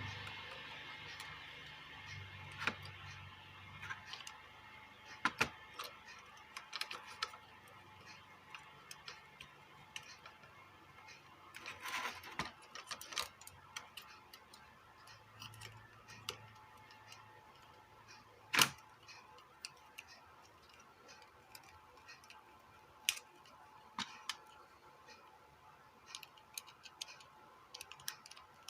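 Scattered clicks and taps of the Bluetooth speaker's plastic casing and parts being handled and fitted back together, at irregular intervals, with one sharper knock a little past the middle.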